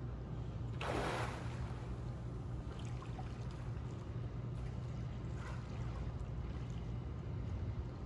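A dolphin's blow, a short breathy burst through the blowhole about a second in, with a few fainter breaths or splashes later, over a steady low hum and lapping pool water.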